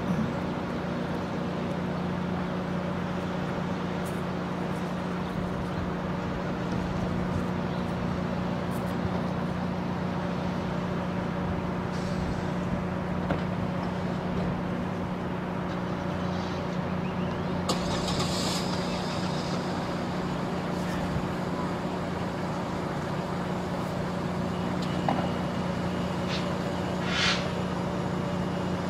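Diesel commuter train standing at the platform, idling with a steady hum. A couple of brief hisses cut in, one about two-thirds through and one near the end.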